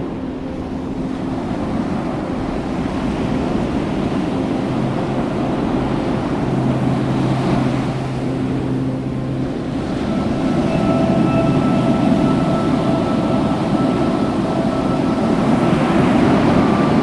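Ocean surf and wind noise on the microphone, with soft, held music tones fading in about a third of the way through and growing clearer after the midpoint.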